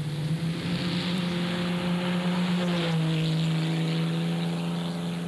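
Dirt-track race car engine running hard as a car passes on the track, over a rushing noise; the engine note drops a little about three seconds in.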